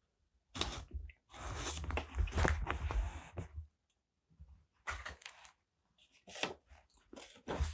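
Paper being handled close to the microphone: rustling and crinkling in several bursts, the longest lasting about two seconds, with short pauses between them.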